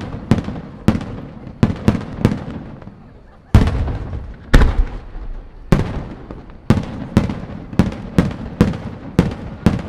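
Aerial firework shells bursting in quick succession, roughly two bangs a second, each sharp crack trailing off in a rolling echo. After a short lull, two heavier, deeper booms land about three and a half and four and a half seconds in, the second the loudest, before the rapid bursts resume.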